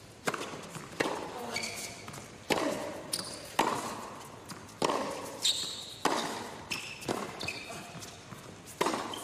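Tennis rally on an indoor hard court: sharp racket strikes and ball bounces about once a second or a little slower, with short high squeaks between the shots.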